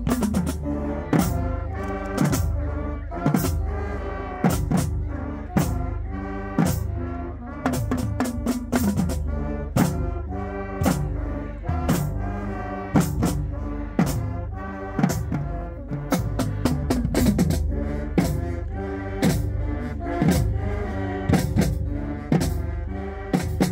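High school marching band playing: brass and saxophones over a sousaphone bass line, with a drumline of snare drums, tenor drums and bass drums keeping a steady beat that has loud accents about once a second.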